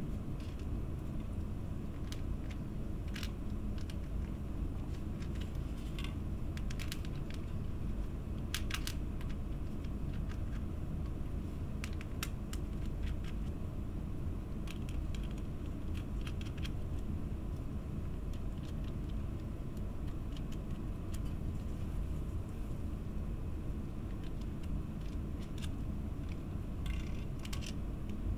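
Small metal nuts and screws clicking lightly against clear acrylic plates as the nuts are spun on by hand, in scattered bunches of clicks over a steady low background hum.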